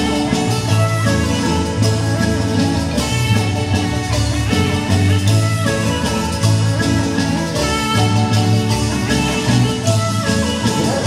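Marimba band playing dance music with a steady, repeating bass line.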